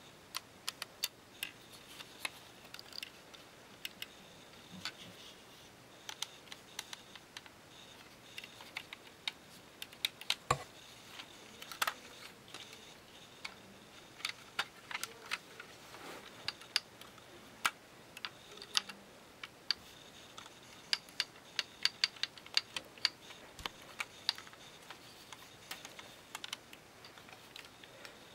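Lego pieces being handled: irregular small plastic clicks and taps, with a few sharper snaps scattered through and the clicks coming thicker in the second half.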